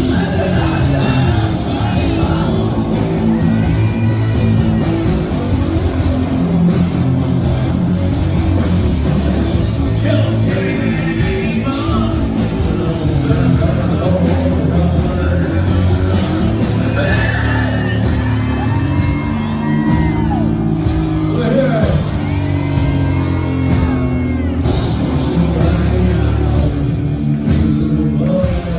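Live heavy rock band playing loud in a large venue, with distorted guitars and bass, and sung and shouted vocals coming through in stretches.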